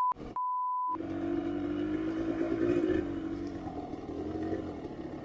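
A censor bleep in two short beeps at the start, then a dirt bike engine running steadily at idle.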